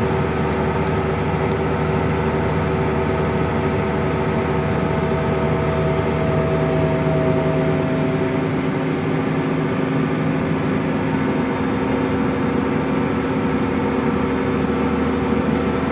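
New Holland T9040 four-wheel-drive tractor running steadily under load while pulling an air drill, heard inside the cab as a constant drone with several steady hums. About halfway through, one of the higher hums fades and a lower one grows stronger.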